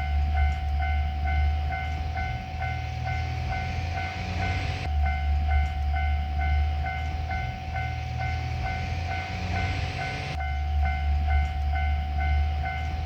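Japanese railway level crossing's electronic warning bell ringing, a rapid even ding repeated nearly three times a second, over a steady low rumble.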